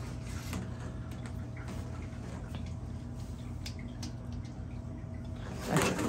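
Faint clicks and rubbing as a dishwasher's corrugated plastic drain hose and its clamp ring are handled and worked with a screwdriver, over a steady low hum.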